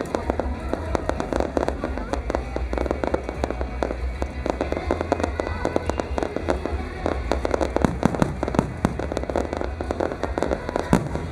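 Fireworks display with a dense, continuous stream of rapid crackles and bangs, a few louder bangs standing out near the end.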